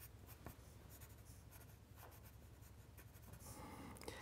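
Faint scratching of a pencil drawing strokes on paper, a little louder near the end.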